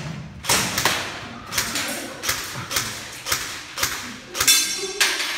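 Rifle fire from an AK-pattern rifle: single shots in a steady string, roughly two a second, each followed by echo off the walls of an indoor range.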